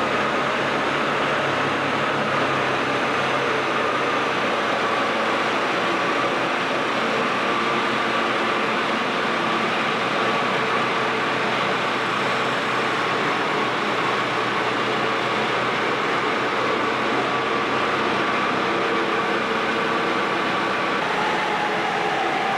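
Tractor running steadily, with a whine that slowly falls in pitch.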